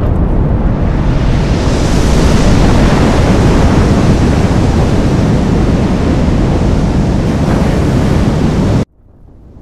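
Sound-effect roar of a nuclear explosion: a loud, continuous rumbling roar, heaviest in the low end, that cuts off abruptly near the end.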